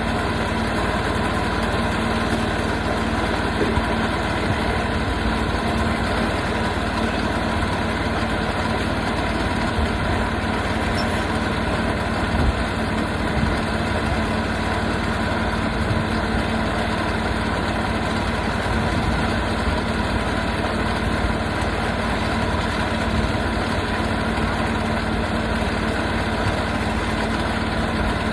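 Portable sawmill's engine running steadily at a constant speed.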